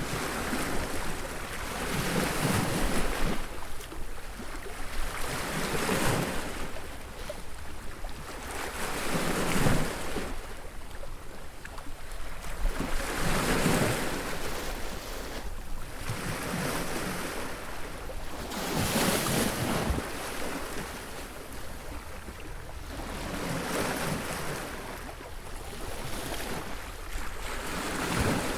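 Ocean waves breaking on a beach: a rushing surf that swells and fades in repeated surges every few seconds.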